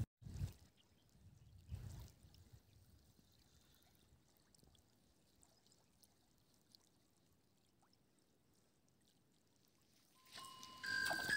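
Near silence with faint background hiss, broken by two brief dull bumps in the first two seconds; bright chime-like music with steady ringing tones comes in near the end.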